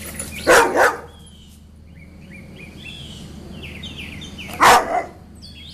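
A dog barking: two quick double barks about four seconds apart, with birds chirping in the background.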